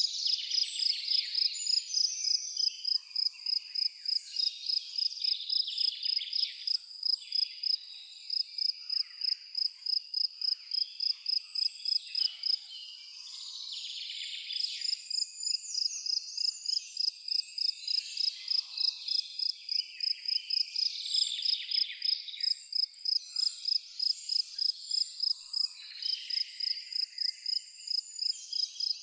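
A cricket chirping in an even, high-pitched rhythm of a few chirps a second, stopping for a couple of seconds about halfway through, with birds calling in the background.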